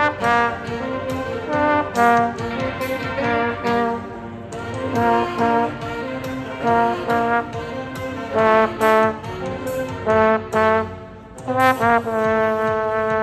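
Street band of saxophones and trombone playing a tune in short, punchy phrases. A brief dip comes shortly before the end, followed by a long held note.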